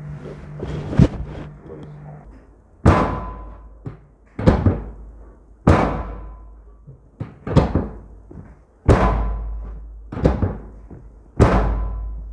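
A series of heavy thuds, about eight of them at uneven gaps of one to two seconds, each struck sharply and ringing out for about a second.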